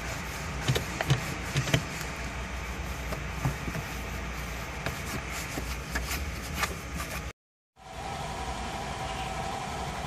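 Cloth rubbing and wiping over plastic dashboard trim, with small knocks and scrapes, over a steady machine hum. About seven seconds in the sound cuts out for a moment, then a steady hum with a mid-pitched whine carries on.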